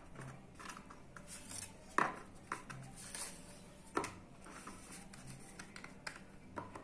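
Stiff dry lasagna sheets handled and laid into an aluminium baking pan: a few light taps and clicks, the sharpest about two and four seconds in, with soft handling sounds between.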